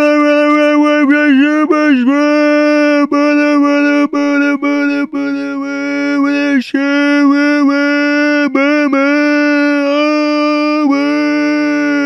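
Goofy meme scream sound effect: a loud voice holding one steady note, broken by short gaps and small dips in pitch about once a second.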